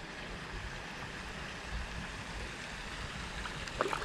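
Steady, low-level rush of flowing river water, with a few faint ticks near the end.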